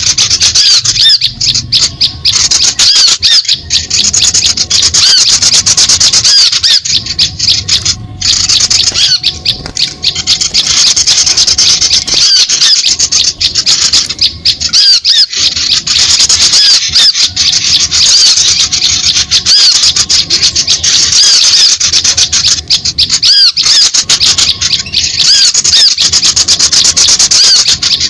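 Small-songbird lure call (suara pikat) played loud: a dense, continuous chorus of rapid, rising high chirps from several small birds calling over each other, used to draw small birds in.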